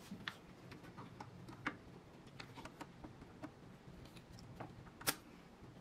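Faint, irregular clicks and ticks of small engine-bay parts being handled: plastic hose clips and connectors being unclipped and worked loose by hand. One sharper click stands out about five seconds in.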